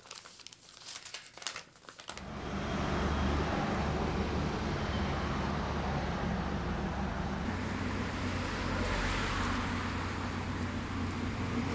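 A few soft rustles of a paper sheet being handled, then, from about two seconds in, steady outdoor street noise with a low rumble.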